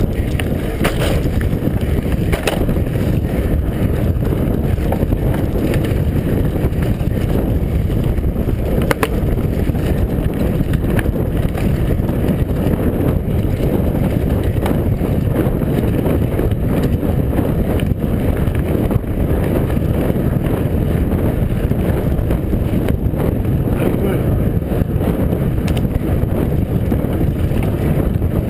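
Wind buffeting the microphone of a camera on a mountain bike riding fast, mixed with the tyres rolling over a dirt trail; a few sharp knocks from the bike hitting bumps.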